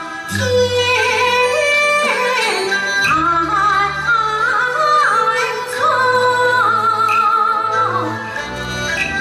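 A woman singing a Yue opera aria in a sliding, ornamented melody over instrumental accompaniment with steady low held notes.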